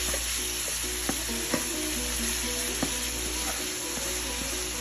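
Ground meat sizzling steadily in a hot pan while a plastic spatula stirs and breaks it up, knocking against the pan a few times with sharp clicks.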